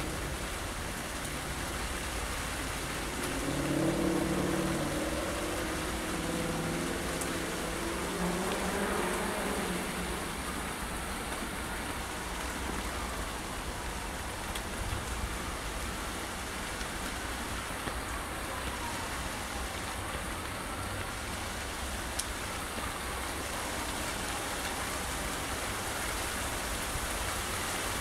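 Steady rain and wind in the fir trees, with a low rumble of wind on the microphone. A low hum swells briefly about four seconds in, and a faint whistle wavers up and down through the middle.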